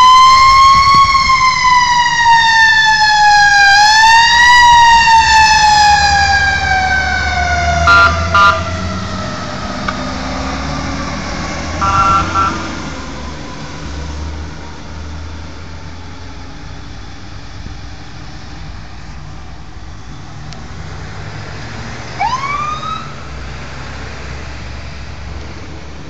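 Fire truck siren wailing up and down, then winding down slowly and fading, over a low truck engine rumble. Two short horn blasts sound midway, and near the end a siren gives one brief rising whoop.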